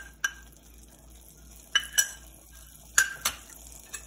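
A spoon clinking and scraping against a small frying pan as fried cashews and raisins are knocked out of it into the stew pot: about five sharp, ringing clinks, two pairs of them about a second apart and one single clink just after the start.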